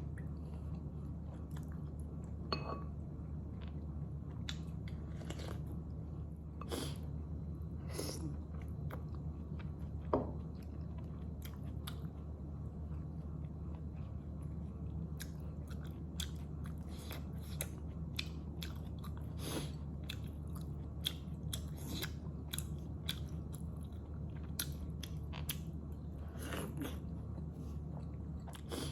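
Close-up chewing of momo dumplings: irregular wet smacks and mouth clicks as the food is bitten and chewed, over a steady low hum.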